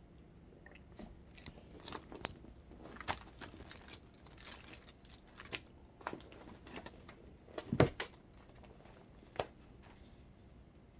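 Faint scattered clicks and rustling handling noises, with a louder low knock nearly eight seconds in.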